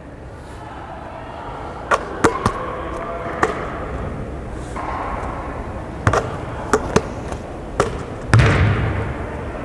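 Basketball bouncing on a hardwood gym floor: a string of short, sharp bounces at uneven intervals, with a louder, heavier thump near the end, over the low hum of a gym.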